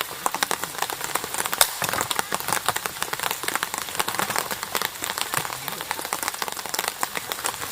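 Rain falling, with a dense, irregular stream of individual drops ticking on a surface close by.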